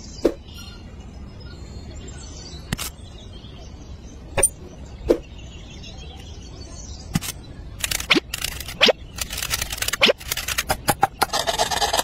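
Light, scattered taps and clicks as a miniature axe and saw are handled and set down. In the last few seconds they quicken into a busy run of clicks and scraping as the tiny saw cuts into a twig.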